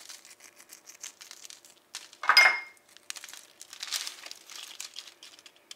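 Baking parchment crinkling and rustling under a large bone-in ribeye steak as it is lifted and turned over with silicone tongs, with one louder crackle about two seconds in.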